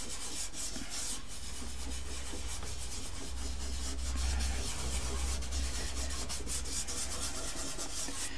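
Fingertip rubbing soft pastel into pastel paper to soften and blend it: a steady dry rubbing made of many quick strokes.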